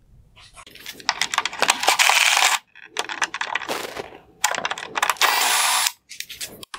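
Cordless power screwdriver spinning in two short bursts, about two and five seconds in, backing Phillips head screws out of a plastic headlight housing, with clicks and rattles from handling in between.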